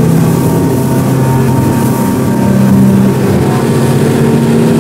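Twin Yamaha 250 outboard motors running at speed, a steady drone, with water rushing past the hull.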